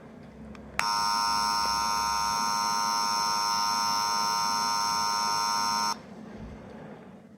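A capsule toy's electronic sound chip giving a steady, unwavering buzzer tone. It switches on with a click just under a second in, holds for about five seconds, then cuts off suddenly.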